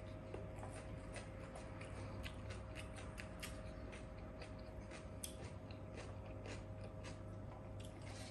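Faint, irregular small clicks and crunches of eating by hand: fingers working rice on a steel plate, and chewing. Underneath is a steady low hum.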